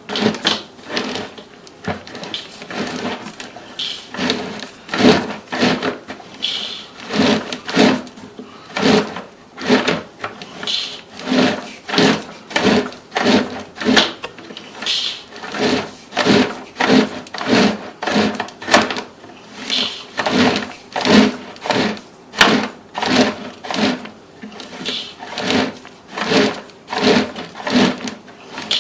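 Sewer inspection camera's push cable being worked by hand in the drain line, a rhythmic rubbing and knocking of about one or two strokes a second.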